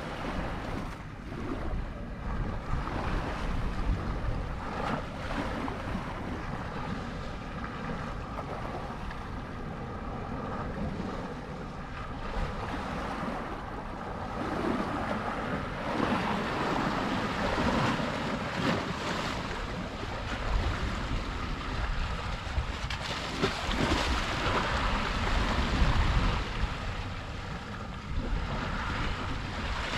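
Sea waves washing against the shore, with wind gusting on the microphone in low rumbles that swell and fade.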